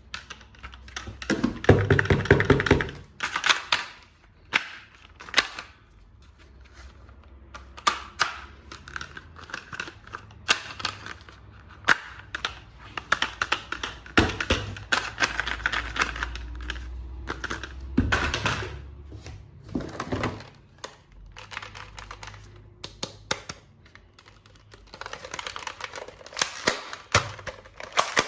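Hard plastic toy parts being handled: irregular clicks, snaps and knocks, some in quick rattling runs, with a few heavier thunks.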